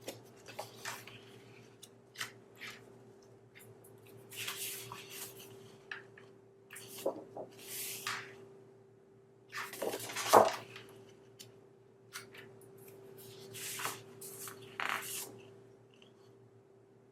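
Sheets of heavyweight patterned cardstock being handled and turned over: intermittent swishes and rustles of paper sliding, with light taps and one louder knock about ten seconds in. A faint steady hum runs underneath.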